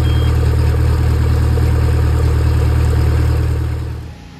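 Suzuki DF140 four-stroke outboard engine idling steadily while being flushed on a water supply. The sound cuts off about four seconds in.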